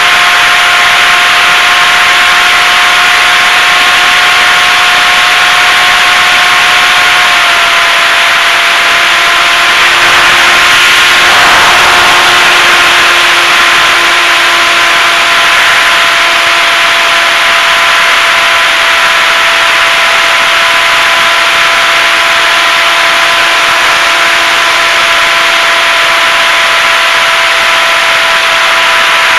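HobbyZone Super Cub RC plane's electric motor and propeller whining steadily, picked up by the onboard camera together with a strong rush of airflow. The pitch steps slightly lower about seven seconds in and then sinks a little further, and the air rush swells briefly around eleven seconds.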